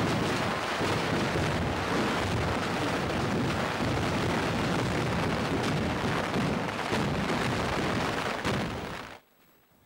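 Firecrackers going off in rapid succession, a dense continuous crackle of bangs. The sound cuts off abruptly about nine seconds in.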